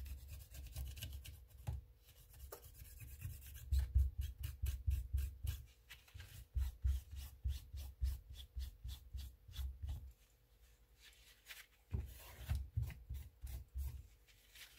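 Quick repeated rubbing strokes over a Samsung Galaxy S10+ frame as it is wiped clean of old adhesive, with low handling bumps. The strokes pause briefly about ten seconds in, then resume.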